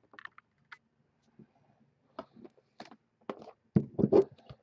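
Light taps and clicks of trading cards and card packaging being handled on a tabletop, with a few louder thunks starting near the end.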